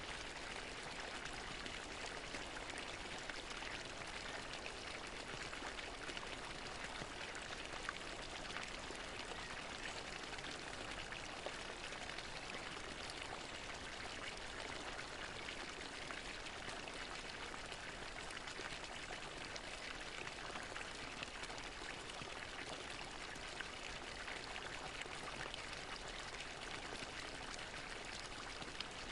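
Garden fountain water splashing steadily into its basin, an even rushing patter with an occasional faint droplet click.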